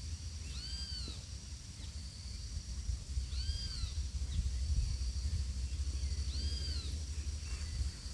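An animal's mewing call, given three times about three seconds apart, each rising then falling in pitch. A steady high insect buzz runs underneath.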